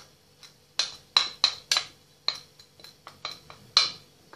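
Wooden spatula knocking and scraping against a bowl to push grated pumpkin out into a steel cooking pot: about eight sharp, irregular knocks.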